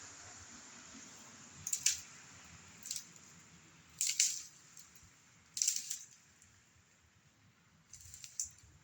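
Five short crunching, scraping noises spread a second or so apart, with no engine running.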